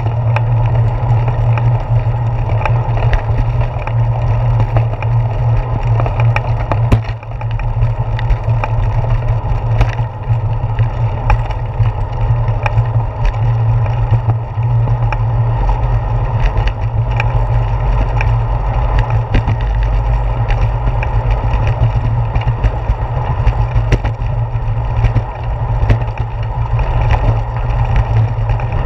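Steady wind rumble and rolling noise picked up by a handlebar-mounted GoPro on a moving bicycle, with frequent small clicks and rattles as it rides over the pavement.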